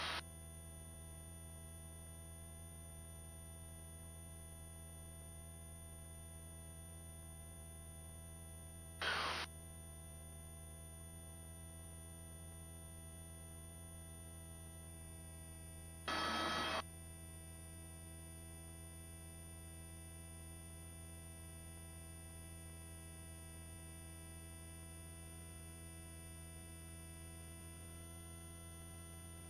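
Faint steady hum of stacked held tones on a helicopter's headset intercom line, broken twice by a short burst of hiss, about nine and sixteen seconds in, as the voice-activated headset microphones briefly open.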